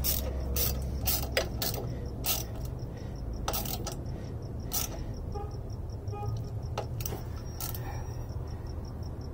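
Scattered light metallic clicks and taps at irregular intervals from hand tools and a bolt being worked into a shift cable bracket adapter on a transmission, over a low steady hum.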